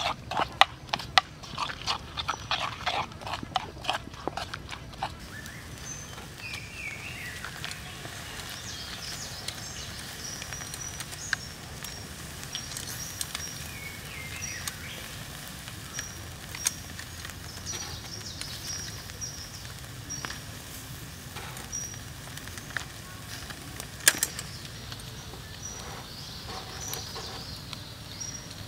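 A spoon clicks and scrapes against the bowl as a chilli sauce is stirred, in a quick run of sharp clicks over the first five seconds or so. After that comes a quieter outdoor background, with repeated short high chirps and a few falling squeaky calls.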